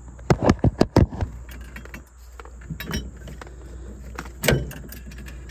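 Metal tubes of a soft-top folding frame clinking and knocking as they are handled and fitted together: a quick run of about six clacks in the first second, then one louder knock about four and a half seconds in.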